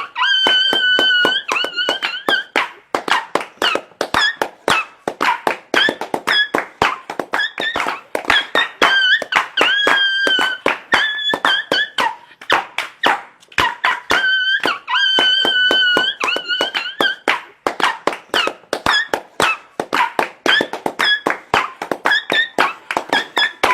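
Music with a fast, steady beat of sharp knocks and repeated high squeaky held notes that waver slightly and come back in short phrases.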